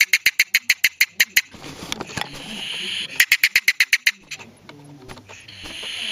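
A trapped polecat's defensive chattering: fast bursts of harsh clicking calls, about seven a second, in two bouts about three seconds apart, with open-mouthed hissing between them.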